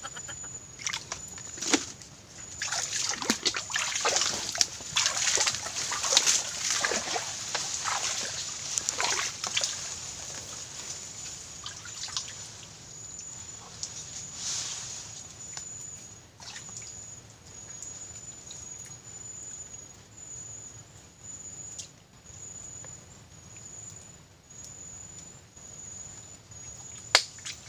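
Muddy swamp water splashing and sloshing as a person wades and works his hands in it, with trickling drips; busier splashing in the first ten seconds, quieter stirring after. A thin, high whine keeps starting and stopping throughout.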